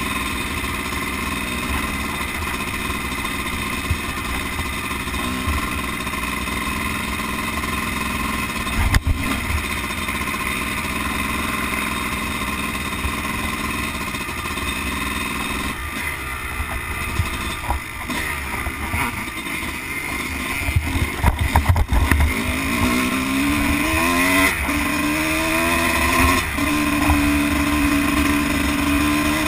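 Dirt bike engine running under way, heard from a camera on the bike with wind rushing over the microphone; a sharp knock about nine seconds in. Later the ride gets rougher, with several knocks, and the engine note repeatedly climbs in pitch and drops back as the rider opens the throttle and shifts up.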